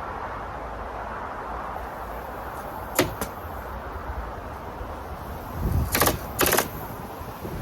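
A rapid-fire roofing stapler fastening ice and water guard underlayment. A couple of sharp clicks come about three seconds in, then two short bursts of rapid stapling near the end, over a steady low background noise.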